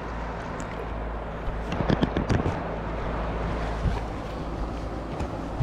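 Steady rush of a mountain stream, with a low rumble of wind on the microphone. A quick cluster of splashes or knocks comes about two seconds in.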